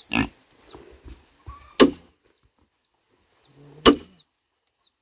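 Two sharp metallic strikes about two seconds apart: a hammer driving an iron wedge into a log to split it.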